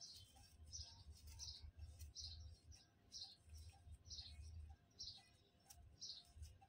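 Faint bird chirping: one short, high, falling chirp repeated over and over, a little more than once a second, over a low rumble.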